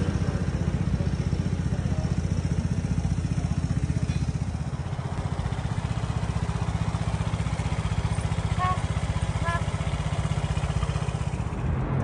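Vespa scooter's single-cylinder engine idling steadily at an even pitch.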